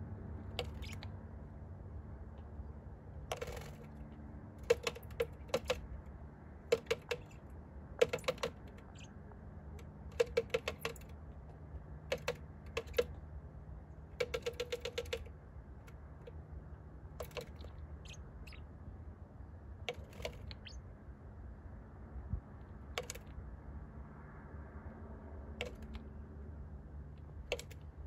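A small bird pecking at a pickup truck's side window glass: sharp beak taps in quick bursts of several strikes, coming every second or two, then thinning to single taps in the second half.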